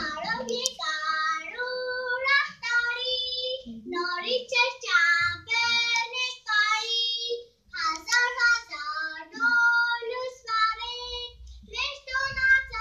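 A young child singing a song in a high, clear voice, holding notes between short breaths, with a brief pause about halfway through.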